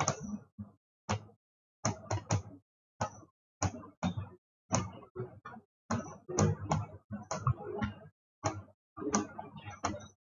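Computer keyboard being typed on: a run of irregular, separate key clicks.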